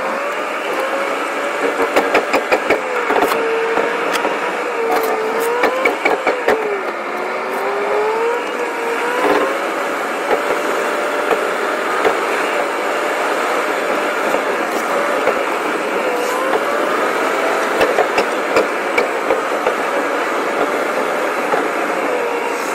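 Car cabin noise while driving: the engine and road running steadily, with the engine note drifting up and down. Scattered light clicks are heard over it.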